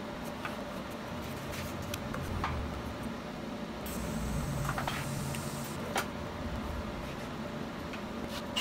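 TIG welding arc making a fusion tack on 304 stainless steel tubing at about 200 amps, heard as a steady high hiss for about two seconds mid-way that ends in a click. Before it, a few light clicks of the metal pieces being set on the steel welding table.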